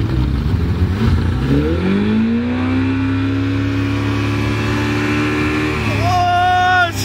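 Tow boat's engine pulling a water-skier up out of the water: it runs up in pitch over about a second, then holds a steady pitch at speed. Near the end a loud high held tone sounds for about a second.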